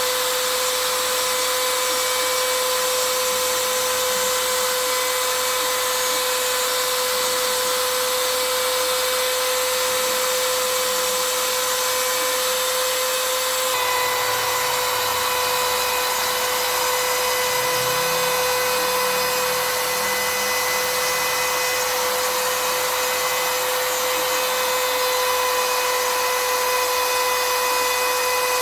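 Spindle motor of a home-built CNC router running with a steady high whine over a hiss of cutting, its tone shifting slightly about halfway through.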